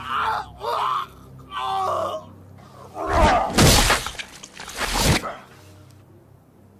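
A person groaning three times, with no words. About three seconds in come three loud, noisy blows over roughly two seconds: axe strikes landing on a body.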